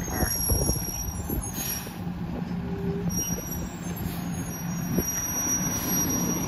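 Peterbilt rear-loader garbage truck's diesel engine running at low speed as the truck rolls along, with scattered knocks and a short squeal about halfway through.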